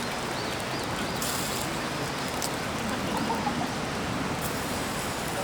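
Steady rush of a shallow river flowing over stones, with a few faint bird chirps over it.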